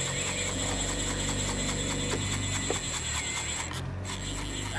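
Large single-action mooching reel ticking rapidly and evenly as its ratchet clicker turns while a hooked chinook salmon is played, over the steady low drone of the boat's motor.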